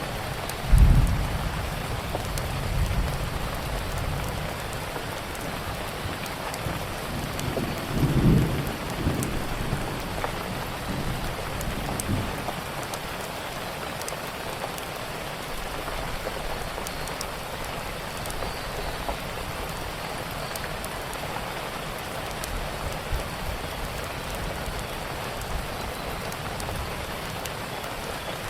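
Steady rainfall with scattered small crackles from a fireplace. A low rumble comes about a second in, the loudest moment, and another around eight seconds.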